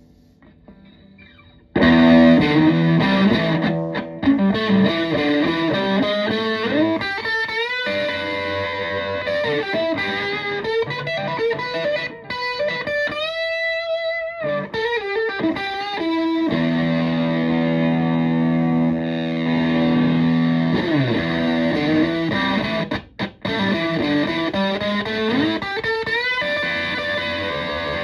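Stratocaster electric guitar played through a Tone Bender MKI fuzz pedal (Gary Hurst version) into a Fender Twin Reverb clone amplifier: thick, sustaining fuzz-distorted notes and chords starting about two seconds in. Around the middle a single held note wavers in pitch.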